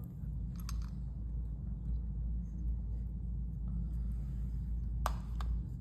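A steady low rumble with a few light clicks from wall-clock parts being handled: two about half a second in and two near the end.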